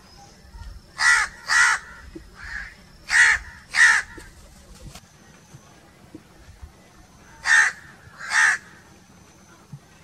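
House crows cawing: three pairs of loud caws, one early, one a little later, and one near the end, with a softer caw between the first two pairs.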